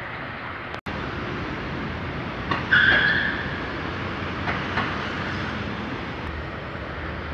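Steady hum of road traffic and station ambience. A little under three seconds in, a loud, high squeal lasts under a second, and a few faint clicks follow.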